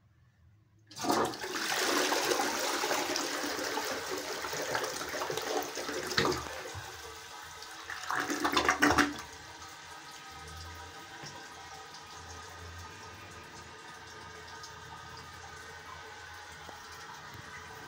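Habitat M.R. toilet flushing: a loud rush of water starts about a second in, with two stronger surges as the bowl empties, then drops to a quieter steady hiss as the water refills.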